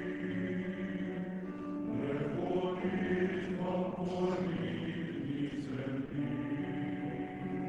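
Male choir singing a Ukrainian song in sustained, held chords.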